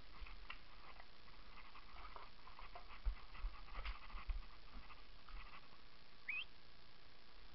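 Faint rustling and scattered low thumps and clicks as a player moves slowly through brush along a wall, with one short rising squeak about six seconds in.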